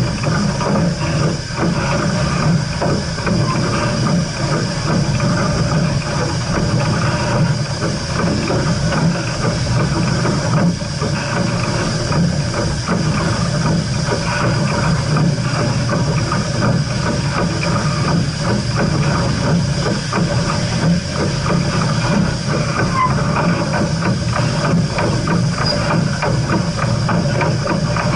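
Steam locomotive with a steady hiss of steam, under a dense run of small rapid clicks and a low rumble, without a break.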